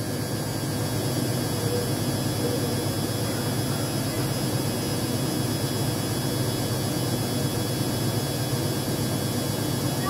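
Front-loading washing machine spinning with a steady hum and whir. Its drum is full of suds from too much detergent.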